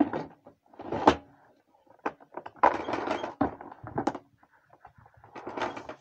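Plastic knocks, clicks and rubbing from a Samsung canister vacuum cleaner's body and parts being handled and fitted back together, a few separate thunks about a second apart with a longer scraping stretch in the middle.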